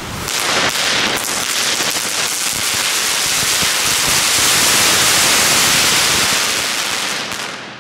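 A bundle of Category 1 consumer fireworks going off together on paving: a loud, dense crackling and hissing that starts about a third of a second in, holds for about seven seconds and fades near the end.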